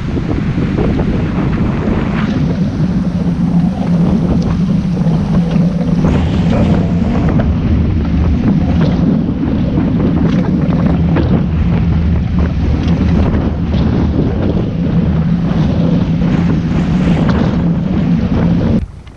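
Strong wind blasting across the microphone on the deck of a small sailing yacht in heavy seas, with waves rushing and breaking along the hull. The noise is loud and steady, then drops away suddenly just before the end.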